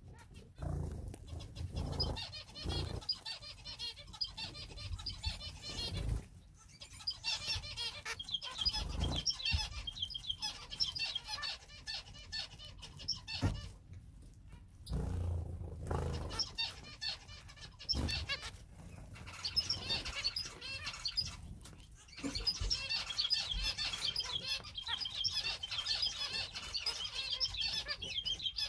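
An aviary of small finches and canaries calling all at once in a dense, high-pitched chatter, with wings fluttering and occasional soft knocks. The chatter dips briefly a few times.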